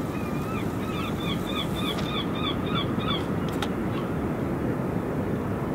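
A bird calling in a quick run of about a dozen short, repeated notes, roughly four a second, which stops about three seconds in. Steady low outdoor background noise throughout, and a sharp click just after the calls end.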